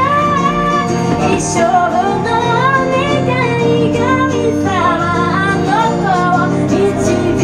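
A woman singing a melodic song live, accompanying herself on a strummed acoustic guitar.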